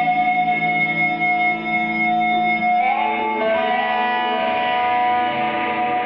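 Instrumental live music: layered electric guitar tones through effects pedals hold a steady drone with no drums. About three seconds in a sliding note enters and the sound grows fuller and rougher with distortion.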